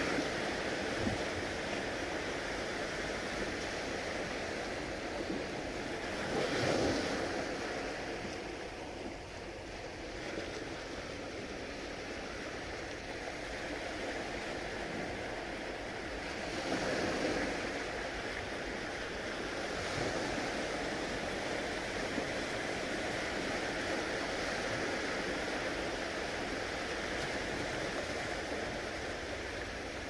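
Gentle waves from a calm sea washing onto the shore: a steady surf hiss, with a wave breaking more loudly about seven seconds in and again around seventeen seconds.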